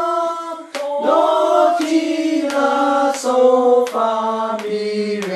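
Voices singing solfège syllables down a diatonic scale, one held note after another, the pitch stepping lower with each note.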